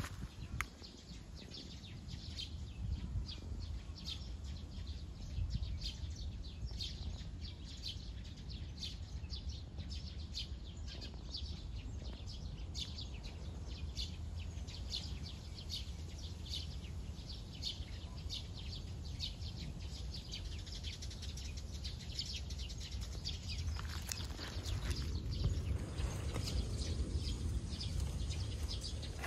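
Small birds chirping in quick repeated notes over a steady low outdoor rumble, with rustling and handling noise near the end.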